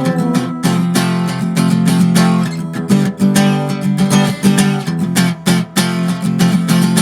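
Music: acoustic guitar strumming steadily in an instrumental passage of a song, with no singing.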